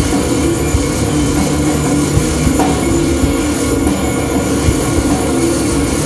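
Live instrumental band playing a dense, droning electronic piece: synthesizers and bass hold a steady drone over a noisy wash, with drum kit and hand-drum hits running through it.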